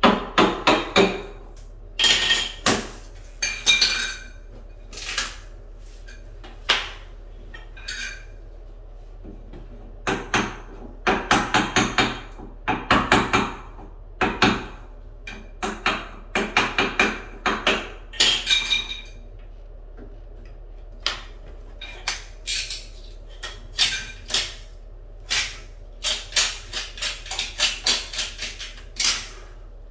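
Hammer striking a chisel to cut away the rotten base of a wooden door casing, in runs of quick, sharp, ringing blows with short pauses between.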